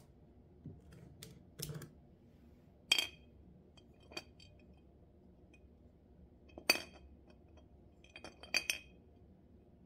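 Glass jar full of thread spools being picked up and tilted, the spools knocking against the glass in a few sharp, separate clinks. The sharpest come about three seconds in and again near seven seconds in, with a quick cluster near the end.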